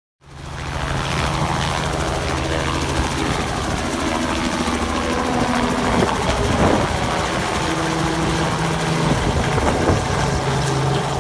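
Light helicopter flying low overhead: a steady engine hum and rotor-blade chop that cuts in abruptly at the start, with a shift in pitch around the middle as it passes.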